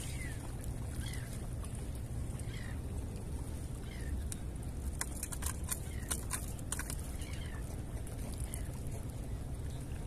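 Steady low wind rumble on the microphone at the water's edge, with faint short falling chirps every second or so. A cluster of sharp clicks about five to seven seconds in, as a freshly caught fish is unhooked by hand.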